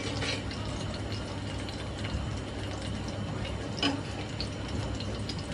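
Beef kofte sizzling steadily in frying oil in a pan, with a light clink about four seconds in.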